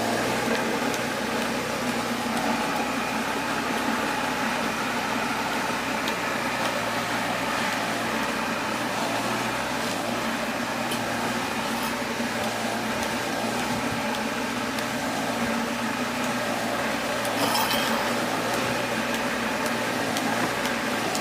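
A small engine running steadily, the motor of a cassava grating machine, with a few faint clicks over it.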